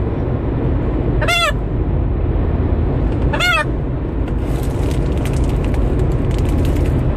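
A goose honking twice, two single arched calls about two seconds apart, over a steady low rumble with some crackling in the second half.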